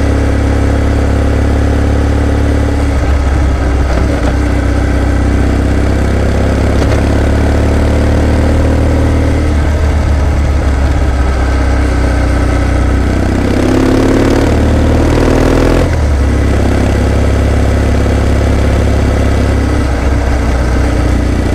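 Kawasaki W650 motorcycle's air-cooled parallel-twin engine running under way over a steady low rumble. About two-thirds through, its pitch rises as it accelerates, then drops suddenly.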